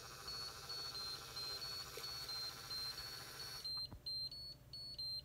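Lifepak 15 monitor/defibrillator's built-in printer running out the confirmation strip with a steady whir, over short high beeps alternating between two pitches that signal a successful 12-lead ECG transmission. The printer stops about three and a half seconds in while the beeping carries on.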